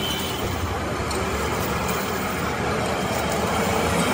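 Steady road traffic noise, with engines of heavy vehicles running.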